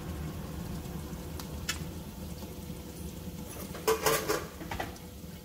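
Water boiling in a wok beneath a pan of glutinous rice set to steam, a steady low rumble. A few light taps come about four seconds in.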